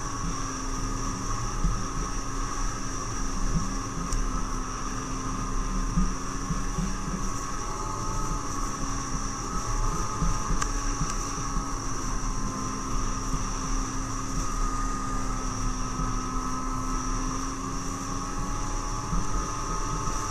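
Snowmobile engine running at a steady cruise, its drone rising and falling a little in pitch, with wind buffeting the microphone.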